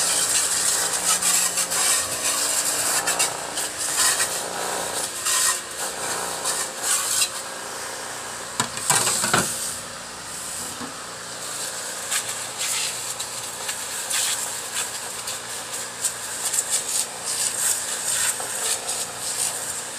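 High-pressure water spray from a washer wand hissing as the jet washes an air conditioner's outdoor-unit fan blade and then its plastic fan grille. The hiss swells and dips as the jet moves across the parts.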